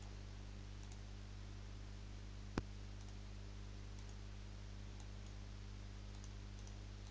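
Computer mouse clicking once, sharply, about two and a half seconds in, with a few fainter clicks, over a steady low electrical hum.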